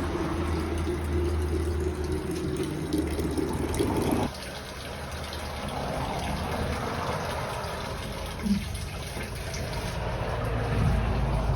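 Water running from a tap into a container while filling up. Before it, a steady low hum stops suddenly about four seconds in.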